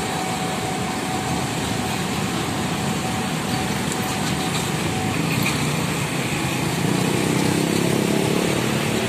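Dense motorcycle and scooter traffic, a steady mix of many small engines running close by. The engine noise grows louder near the end as a larger vehicle passes close.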